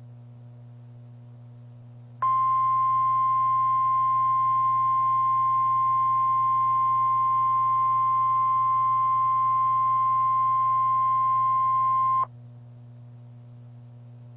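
NOAA Weather Radio 1050 Hz warning alert tone, a single steady high tone that comes on about two seconds in, holds for about ten seconds and cuts off sharply, over a low steady hum. The tone is the alarm that signals a warning broadcast, here a tornado warning, is about to follow.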